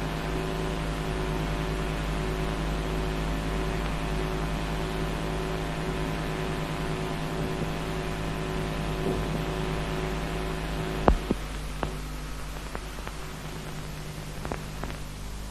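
Steady electrical mains hum with a buzz of evenly spaced overtones over faint hiss. About eleven seconds in there is one sharp click, followed by a few smaller clicks over the next few seconds, and the hum is slightly quieter after them.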